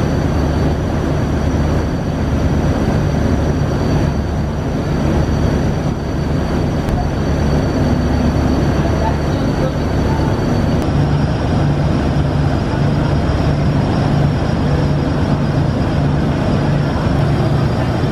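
Steady low, throbbing drone of boat engines under the loud rush of churning water, spray and wind as a river passenger launch runs at speed through rough water.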